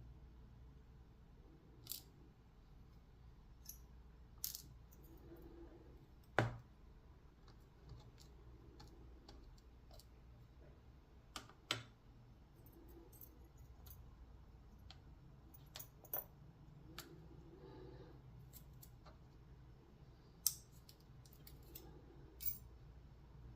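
Scattered small metal clicks and taps, about a dozen, the loudest about six seconds in: a brass padlock's pins, springs and tools being handled as the lock is taken apart.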